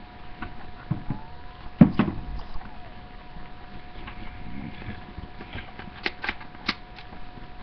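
Handling noises close to the microphone as things are moved and a handbag is fetched: scattered rustles and knocks, a louder thump about two seconds in, and a few sharp clicks a little after six seconds, over a faint steady whine.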